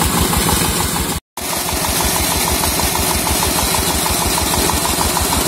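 Dompeng 16 hp single-cylinder diesel engine running steadily and easily as it drives a 6-inch centrifugal irrigation pump, with the pump's outlet jet of water gushing and splashing. The sound cuts out briefly about a second in.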